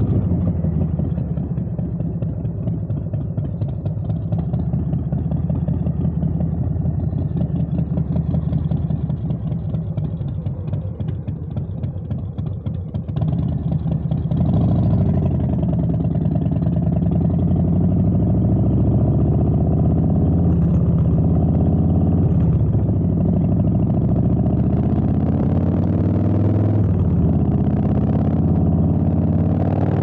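Harley-Davidson Softail Street Bob's Milwaukee-Eight V-twin through drag pipes, at low revs with a pulsing exhaust note, easing off and dipping in level around ten to thirteen seconds in. About fourteen seconds in it is opened up and pulls hard, revs climbing and dropping back several times as it shifts up through the gears.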